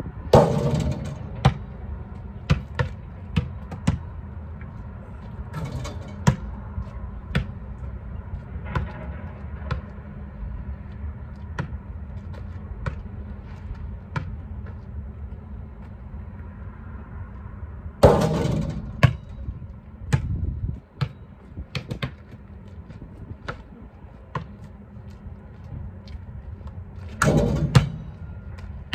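Basketball bouncing on an asphalt court: sharp thuds in runs about half a second apart, with three louder, longer hits about a second in, about two-thirds of the way through and near the end, where the ball strikes the hoop and backboard. A steady low rumble lies underneath.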